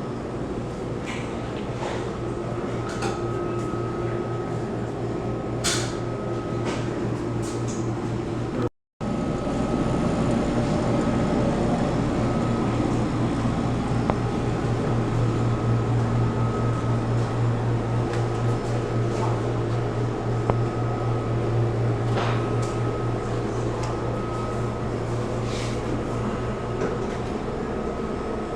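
Steady mechanical hum of air conditioning or ventilation, with a few light clicks and knocks. The sound drops out briefly about nine seconds in, and the low hum is stronger after that.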